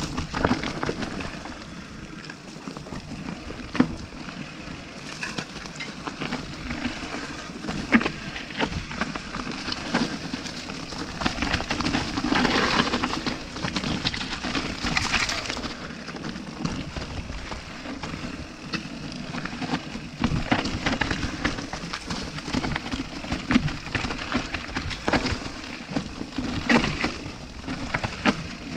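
Mountain bike rolling down a steep singletrack, its tyres crunching over stones and dirt, with frequent sharp knocks and clatter as the bike rattles over bumps.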